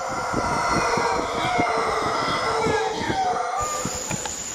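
Mantled howler monkeys howling: several drawn-out calls overlap, wavering up and down in pitch.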